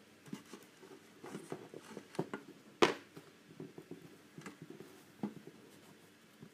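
Handling noise of a small circuit board and other objects being set down and moved about on a plastic tabletop by hand. It is an irregular run of light clicks and taps, with one sharper knock a little before halfway.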